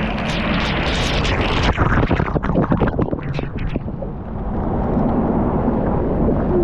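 Turbulent river water rushing and splashing right against the camera as it dips in and out of the current. Dense crackling splashes for about the first four seconds, then a steadier rush.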